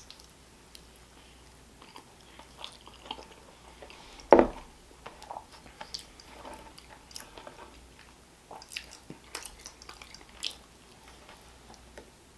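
A person chewing mouthfuls of pizza close to the microphone: soft wet smacks and clicks scattered throughout, with one louder short mouth sound about four seconds in.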